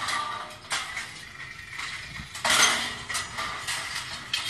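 Irregular metallic clanks and clicks from steel scaffolding pipes being put together into a stage frame, loudest about two and a half seconds in.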